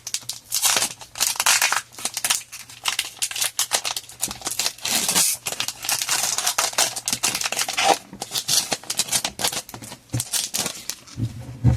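Foil wrapper of a Pokémon TCG booster pack being opened and handled, crinkling and rustling in a long run of irregular crackles.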